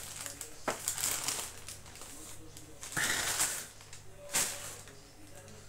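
Rustling and crinkling of a shopping bag being rummaged through, in short irregular bursts, with a sharper crackle about four seconds in.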